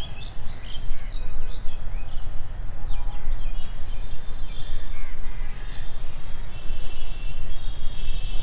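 Several birds chirping and calling, short rising and falling chirps thickest in the first couple of seconds, with a thin steady high trill from about halfway, over a steady low rumble.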